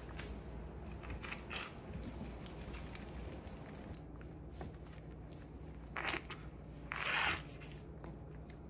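Faint rustling and small crackles of a wet chihuahua moving about on a towel, with two short, louder puffs of noise about six and seven seconds in.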